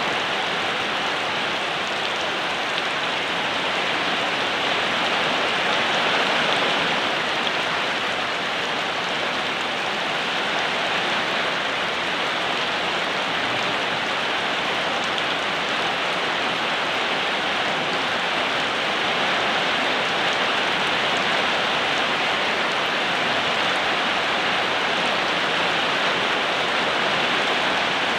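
Steady rain falling, an even wash of rain noise with no breaks.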